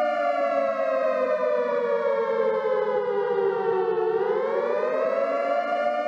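Outdoor tornado warning siren sounding a steady chord that slowly sags in pitch for about four seconds, then climbs back up within about a second and holds steady again.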